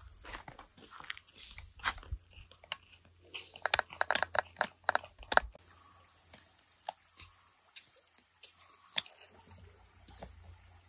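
Crunching footsteps on dry forest leaf litter, with a quick run of crunches about four seconds in. Then, about halfway through, a steady high cicada drone sets in, with a few stray clicks over it.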